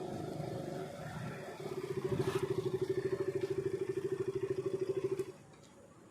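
KTM RC 200's single-cylinder engine running on a test ride, swelling into a loud pulsing engine note from about a second and a half in, which drops away suddenly about five seconds in. No squeak comes from the front disc brake, its pads just replaced.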